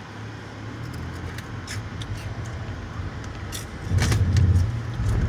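Car rolling slowly along a dirt track, heard from inside the cabin: a steady low engine and tyre rumble with scattered small clicks and rattles. About four seconds in, a heavier low rumble swells up briefly.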